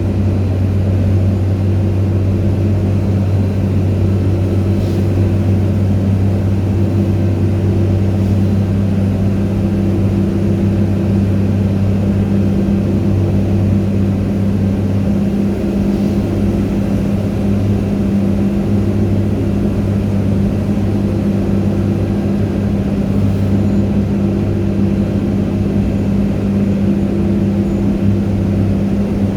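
Steady, loud machinery drone of an Airbus A300-600 being pushed back, with a deep hum and a higher tone that pulses on and off every couple of seconds.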